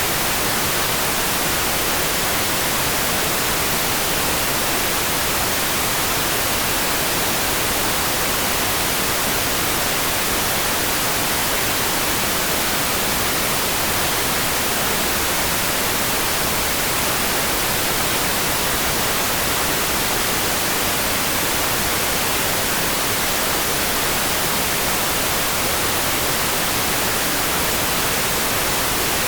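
Steady rain, an even hiss weighted toward the high end.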